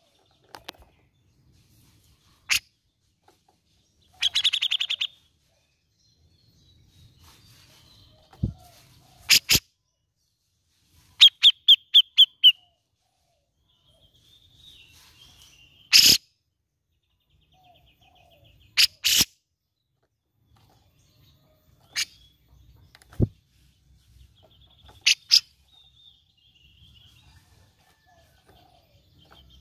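Cucak jenggot (grey-cheeked bulbul) calling: separate sharp, clipped call notes, with a fast buzzing trill about four seconds in and a quick run of about six notes near the middle.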